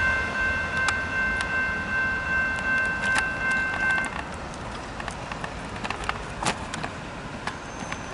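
Railroad crossing electronic bell ringing steadily and cutting off suddenly about four seconds in. A passing train's rumble fades behind it, and a few sharp clicks follow.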